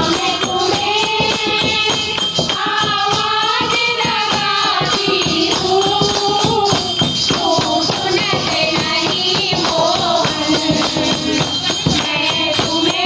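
Group of women singing a Hindi devotional bhajan in kirtan style, accompanied by a dholak drum and hand clapping in a steady beat.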